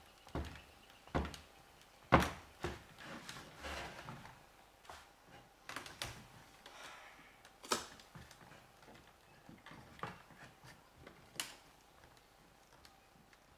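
Wooden spinning wheel turning, its wooden parts giving irregular knocks and clicks, the loudest about two seconds in.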